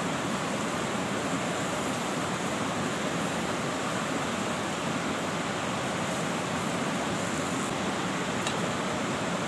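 Portable butane cartridge stove burner running under a pan, giving a steady hiss.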